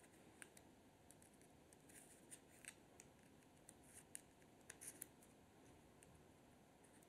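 Near silence broken by a handful of faint ticks and scrapes, mostly in the middle: a small screwdriver's tip catching and turning in the slots of a Helios 44-2 lens's front retaining ring as the ring is tightened down.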